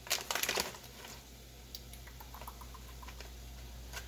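A brief crinkling rustle at the start, then a few faint scattered clicks over a low steady hum: kitchen handling noises at the stove.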